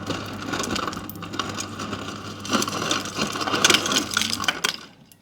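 Samsung Family Hub refrigerator's door ice dispenser on the crushed-ice setting: the crusher motor hums while ice cubes are cut into pieces and clatter down the chute. The hum and rattling stop about four and a half seconds in.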